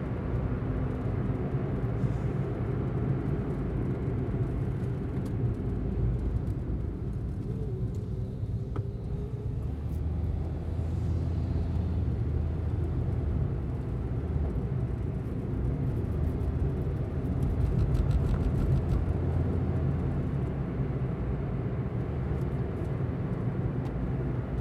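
Honda Element driving with a steady low rumble of engine and road noise.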